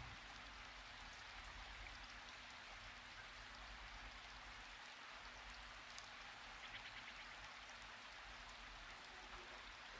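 Near silence: a faint, steady hiss with a few faint ticks.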